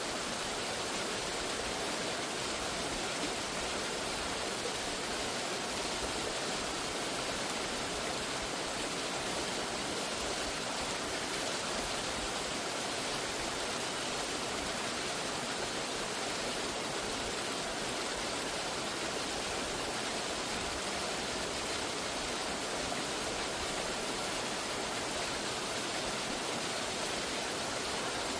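Waterfall's rushing water, a steady, unbroken rush of noise with no change in level.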